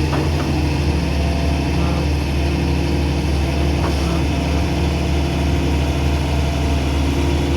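Hydraulic excavator's diesel engine running steadily at a constant pitch, with a few light clicks.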